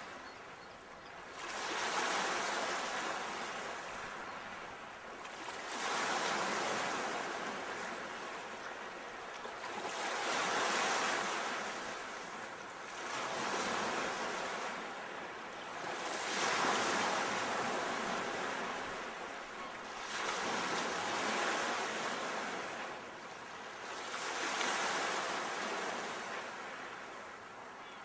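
Ocean waves breaking, the surf surging and falling back in a slow rhythm, about one wave every three to four seconds.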